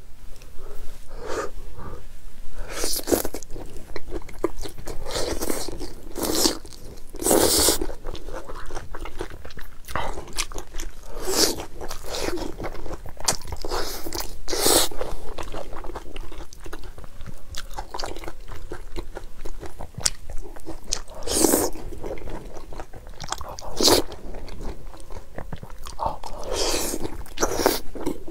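Close-miked eating of long green chilli peppers coated in chilli powder and sesame seeds: a loud crunching bite every few seconds, with chewing between.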